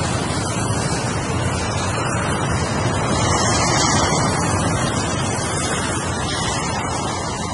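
Ocean waves: a steady wash of surf, swelling slightly about halfway through.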